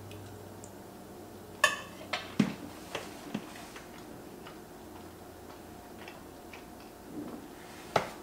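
Close-up chewing of soft pasta with small wet mouth clicks. About a second and a half in, a metal spoon clinks and rings against an enamelled pot as it is set down, followed by a few more sharp clicks.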